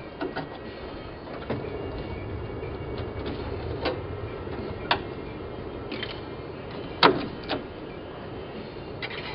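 A screwdriver prying and scraping at the metal window frame of a VW Type 2 door, giving several sharp metallic clicks and knocks, the loudest about seven seconds in, over a steady low rumble.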